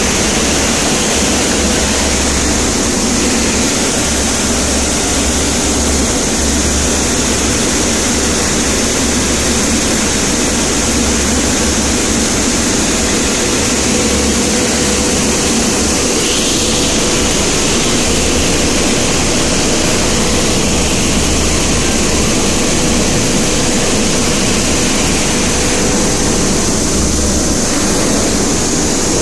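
5XZC-5DH black pepper cleaning machine running: a steady mechanical hum from its motors and vibrating screens, with a constant mid-pitched tone over a wash of noise.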